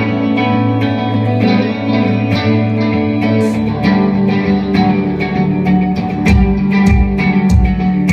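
Band playing a song intro on electric guitar through effects, with a deep bass part coming in about six seconds in.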